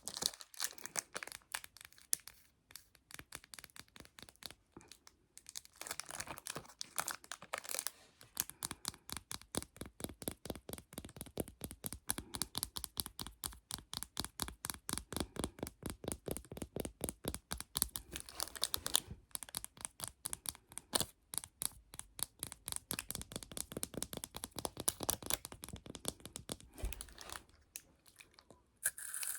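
Rapid fingernail tapping on a plastic phone case, about five taps a second, with short stretches of crinkling in between.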